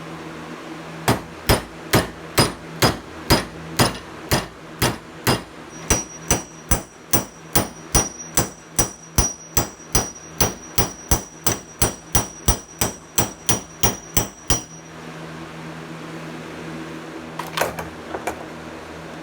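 Hammer striking a steel punch tool to drive the worn factory door hinge pin bushing out of a 2004 Jeep Wrangler TJ's hinge knuckle, a little over two blows a second for about fourteen seconds. From the middle of the run a high metallic ring carries through the blows. Two lighter taps follow near the end.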